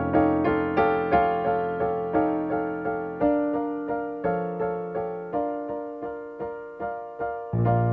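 Solo piano music: a gentle, evenly flowing pattern of single notes, roughly two or three a second, over held bass notes. A deeper bass chord comes in just before the end.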